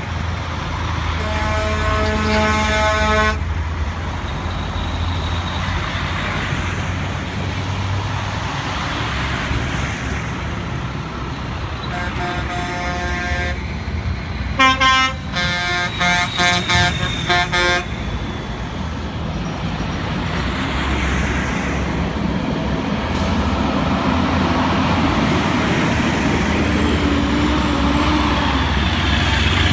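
Heavy multi-axle dump trucks passing one after another, their diesel engines and tyres making a steady low drone. A truck air horn sounds one blast of about two seconds about a second in, and a series of short horn blasts comes around the middle.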